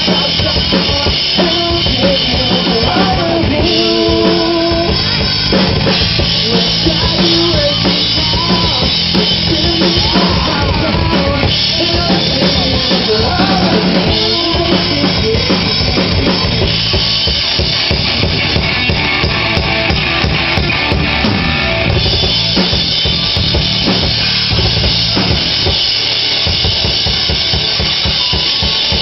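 Music with a drum kit playing, kick and snare strikes prominent.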